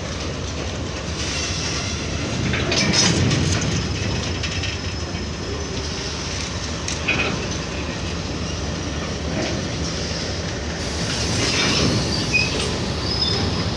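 Freight train of empty BCNA covered wagons rolling past, wheels clattering over the rail joints with scattered clicks, and a few thin metallic wheel squeals near the end.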